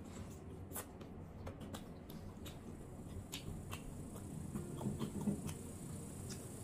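Close-up chewing with wet mouth clicks, then chopsticks rummaging in a metal serving dish of stir-fry, the loudest sounds about five seconds in.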